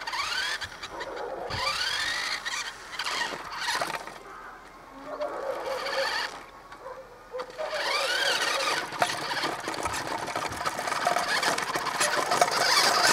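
Toy radio-controlled monster truck's electric motor whining, its pitch rising as it speeds up near the start and again about eight seconds in, with rattling from its wheels rolling over rough concrete.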